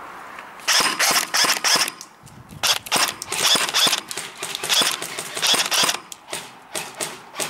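Airsoft gun firing rapid, sharp shots in several short bursts.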